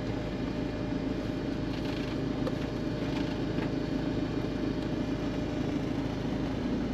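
Steady hum of a car's engine and tyres heard from inside the cabin while driving.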